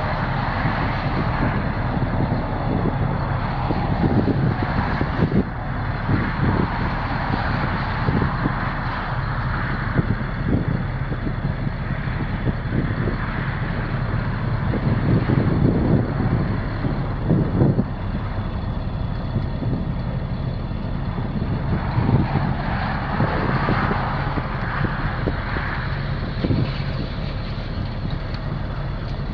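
Sterling L-Line dump truck's Caterpillar C7 inline-six turbo diesel engine running at a steady speed.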